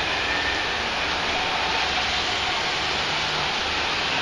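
A steady, even hiss with a faint low hum underneath, unchanging throughout.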